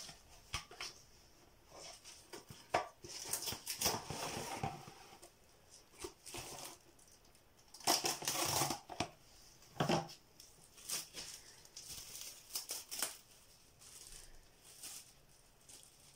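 Plastic wrap being pulled from the roll and handled, crinkling in irregular rustling bursts with a few sharp clicks.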